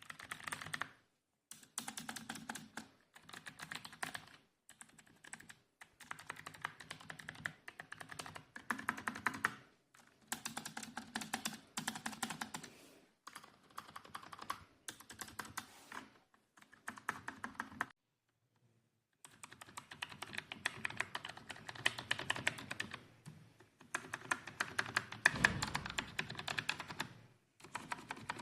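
Membrane keyboard being typed on fast, in bursts of rapid key presses separated by short pauses, with a longer pause about two-thirds of the way in. A heavier thud comes near the end.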